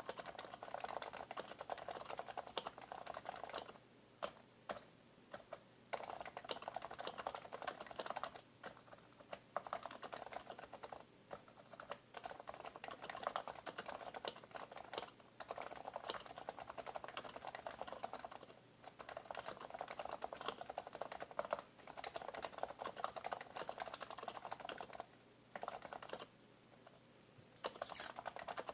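Fast typing on an HHKB Professional BT Type-S keyboard, its silenced Topre capacitive keys pressed in quick runs broken by short pauses every few seconds.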